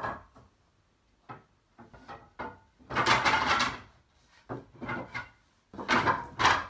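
Wooden slats of a roll-up slatted bed base clattering against each other and the wooden bed frame as the base is lowered into place. A few light knocks, then two longer rattling clatters, about three and six seconds in, each lasting under a second.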